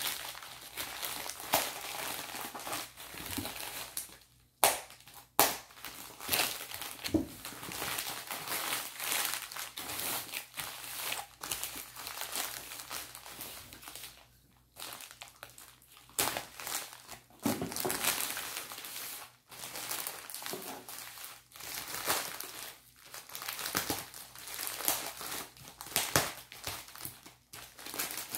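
Plastic poly mailer bag crinkling and rustling as hands squeeze, pull and tear it open, with two sharp louder crackles about four and a half and five and a half seconds in and a few brief pauses.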